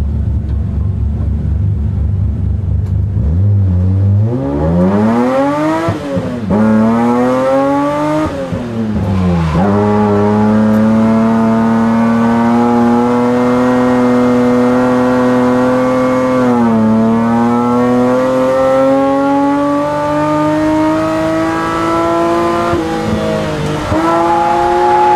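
BMW E34 M5's S38 3.6-litre straight-six running loud. It idles with a low rumble for about three seconds, then is revved up and down twice. It is then held at high revs for long stretches, with brief lift-offs in between, as in a drift run.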